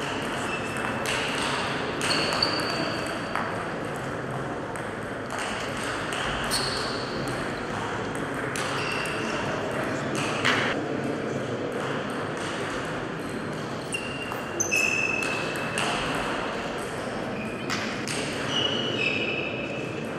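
Table tennis ball clicking off the paddles and the table in rallies, with shoes giving short high squeaks on the hall floor.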